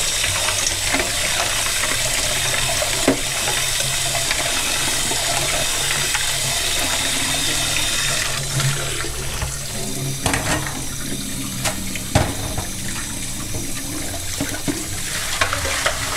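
Kitchen tap running into a stainless steel bowl of raw shrimp in a steel sink while hands rub and rinse them, washing off the salt. About halfway in the rush of water thins, and a few sharp knocks follow.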